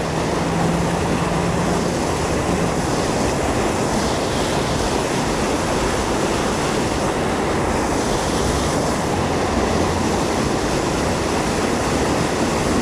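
Fast stream current rushing over a small fall: a steady, loud wash of water with no break.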